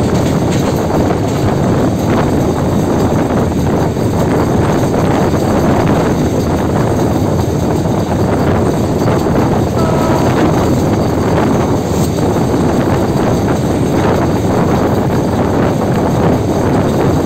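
The running noise of a diesel locomotive travelling at speed, mixed with wind rushing over the microphone as one loud, steady roar.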